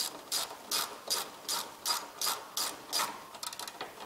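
Hand socket ratchet running a bracket bolt down to snug: a steady series of ratcheting back-strokes, about two and a half a second, ending in a quick flurry of short clicks near the end.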